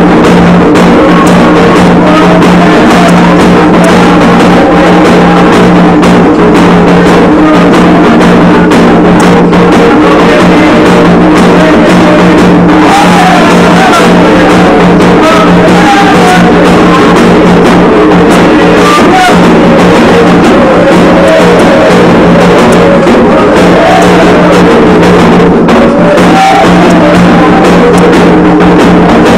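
Candomblé ceremonial music: drums and voices singing, continuous and very loud.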